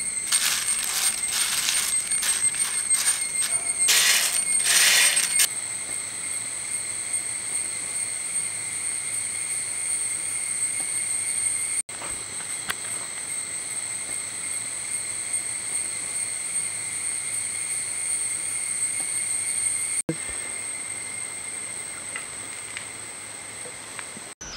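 Crisp fried ribbon pakkavada rustling and crunching as it is tossed by hand, in irregular crackles for about the first five seconds. After that a steady high-pitched drone carries on alone.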